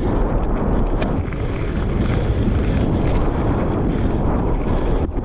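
Wind buffeting the microphone of a camera on a downhill mountain bike running fast down a dirt and gravel trail, mixed with the rumble and rattle of the tyres and bike over rough ground. A few sharp clicks and knocks sound through it.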